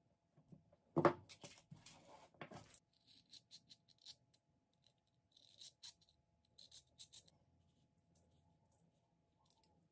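A utility knife blade scraping and slicing through black thread wound on a wooden spool, a run of short scratchy cuts. Before it, about a second in, a knock and handling noise of small objects picked up off a tabletop.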